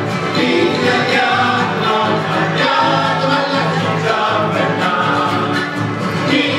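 Cueca music: a sung cueca with instrumental accompaniment, going steadily and loudly throughout.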